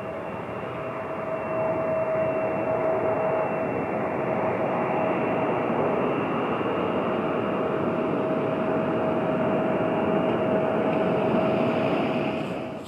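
Jet airliner's engines running, a steady whine over a broad rush that grows louder about a second and a half in and cuts off sharply near the end.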